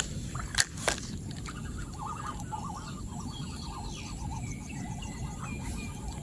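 Outdoor field ambience with small animal calls chattering, mainly from about a second and a half in. Two sharp clicks come just under a second in, over a steady low rumble.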